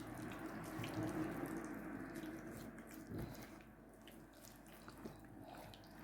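Faint wet squelching and dripping of hands rubbing ketchup over a raw chicken, with a few small soft clicks.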